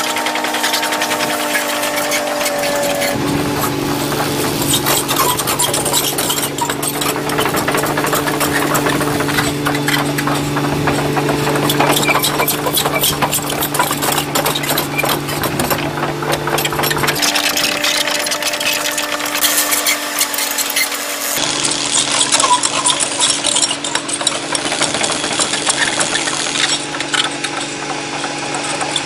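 A 220LC crawler excavator's diesel engine running steadily, with the continuous clatter of its steel track links as it crawls over a rubber speed bump. The engine tone shifts abruptly a few times.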